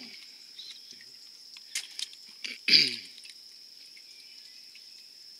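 A steady high-pitched buzz throughout, with a few light clicks. The loudest sound, about three seconds in, is a short low grunt from a person's voice that falls in pitch.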